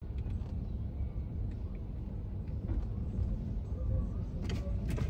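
Steady low rumble of vehicle and road noise on a wet street, with a couple of short clicks near the end.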